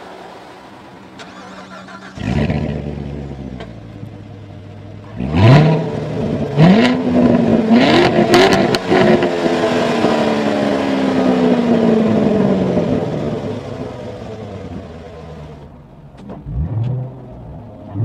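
2014 Corvette Stingray Z51's 6.2 L LT1 V8 through its dual-mode performance exhaust, idling and then revved. It climbs in three quick steps, with the pitch rising each time, then settles slowly back toward idle, and gets two short throttle blips near the end.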